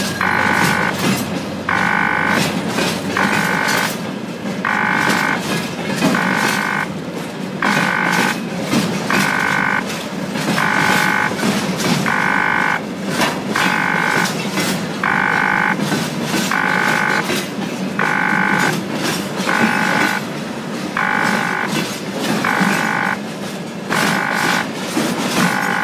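Freight train of oil tank cars rolling past, with a steady rumble and frequent clicks of the wheels over the rails. Over it, a loud electronic warning beep repeats slightly less than once a second.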